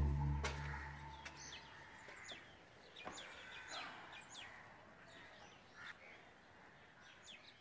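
Faint, scattered bird chirps, short high calls that fall in pitch, heard one after another. A low held music tone fades out in the first second or so.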